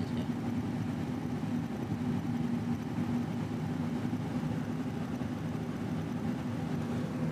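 A steady low mechanical drone that does not change.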